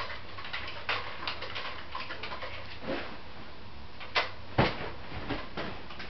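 A few separate sharp knocks and thumps from children scuffling with a Nerf blaster and a cushion, the loudest two close together about four seconds in.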